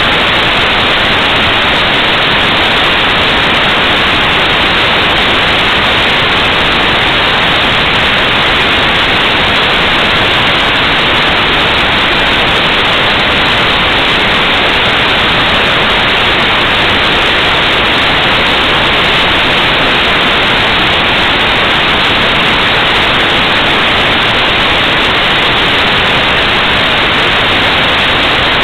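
Loud, steady static hiss on a recorded telephone call, with no voice on the line.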